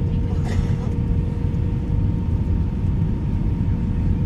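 Airbus A320 cabin noise during landing: a steady low rumble of engines and airflow with a faint steady whine over it.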